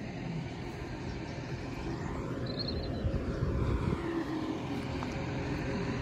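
Tractor engine running steadily, a low continuous rumble.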